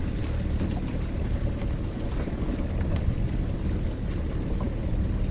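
Small outboard motor idling with a steady low hum, with wind on the microphone. A few faint knocks and rubs come through as a pot rope is hauled by hand over the boat's side.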